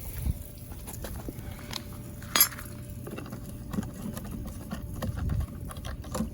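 Scattered light clicks and knocks of objects being handled, with one sharper click about two and a half seconds in, over a low rumble.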